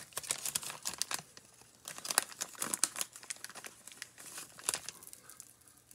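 Plastic bait packaging crinkling and rustling in irregular crackles as salted soft-plastic swim baits are handled in their bag.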